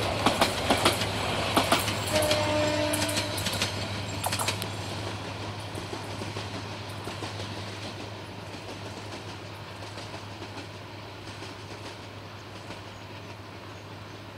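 Meter-gauge passenger coaches rolling past, their wheels clicking over the rail joints. The clicks are sharp for the first few seconds, then the rolling sound fades steadily as the train moves away.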